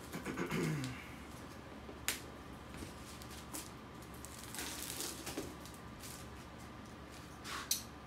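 Handling of a cardboard game box and its plastic wrapping: scattered light clicks and rustles, with a sharp click about two seconds in and another near the end. A brief sound falling in pitch comes right at the start.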